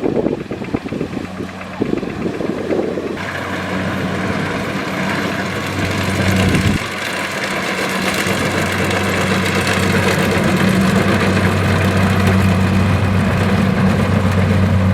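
Kubota DC-70 rice combine harvester's diesel engine running steadily, a deep even drone that settles in and grows louder about three seconds in.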